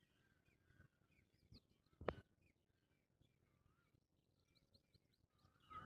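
Near silence with faint, scattered bird chirps in the background and one brief, slightly louder sound about two seconds in.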